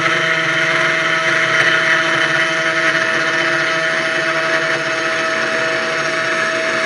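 CNC 1610 Pro router's spindle running at steady speed, its 3 mm end mill cutting in shallow 0.4 mm passes: a constant whine over a hiss of cutting.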